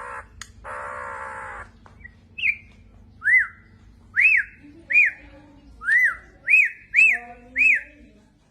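A bird calling: a harsh, drawn-out call about a second long near the start, then a run of about eight short whistled notes, each rising and falling in pitch, roughly two a second.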